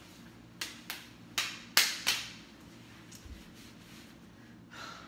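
Five sharp hand claps and finger snaps in quick succession, beginning under a second in and lasting about a second and a half, the fourth the loudest.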